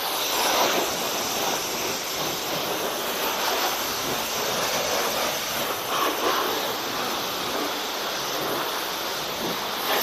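High-pressure washer lance at a self-service car wash spraying water onto a car's bodywork: a steady spray of water.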